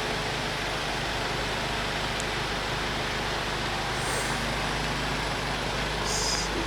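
A vehicle engine running steadily, a low hum under an even rush of noise, with a couple of faint clicks near the end.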